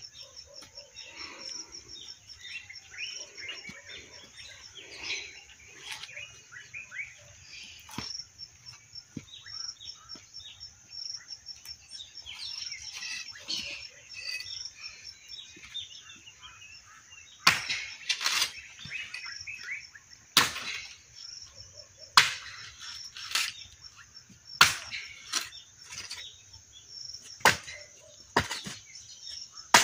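Axe chopping firewood: about ten sharp blows, one every second or two, starting about halfway through. Steady insect chirring runs underneath, with birds chirping in the first half.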